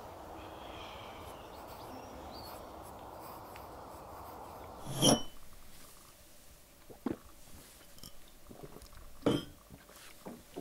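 A steady background hiss, then about halfway through a sharp clink of a cut-glass tumbler with a brief ringing tone. Two short, softer knocks follow a couple of seconds apart.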